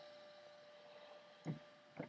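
Faint steady hum with a soft knock about three-quarters of the way through.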